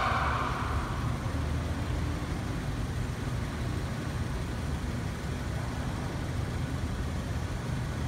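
Car engine idling with one fuel injector not working, so that cylinder misfires and the idle runs rough. A hiss fades out in the first second.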